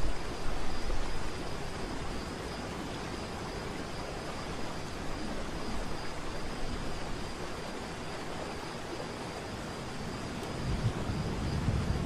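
Steady rush of falling water from a waterfall. A low rumble fades in the first couple of seconds and builds again near the end.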